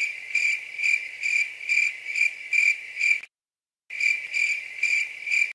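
Cricket chirping sound effect, about two chirps a second, used as the 'crickets' gag for an awkward silence. It breaks off about three seconds in, resumes half a second later and cuts off abruptly at the end.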